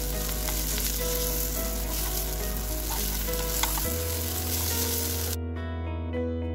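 Sweet potato patties sizzling as they fry in a non-stick pan. The sizzling cuts off suddenly about five seconds in, leaving background guitar music.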